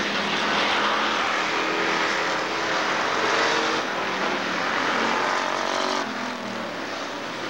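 Dirt-track stock car engines racing, several cars running together as the pack passes; the sound drops slightly about six seconds in.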